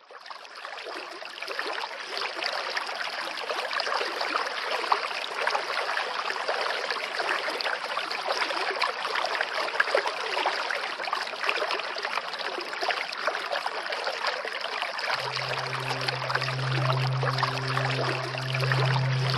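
Flowing water, a steady rushing hiss that fades in at the start. About fifteen seconds in, soft music with a low held bass note comes in over it.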